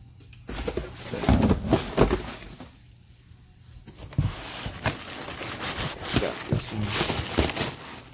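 Handling noise from unpacking a clear plastic headlight: its foam and plastic wrapping rustles and crinkles against the cardboard box, with small knocks of the plastic housing. It comes in two spells with a short lull about a third of the way in.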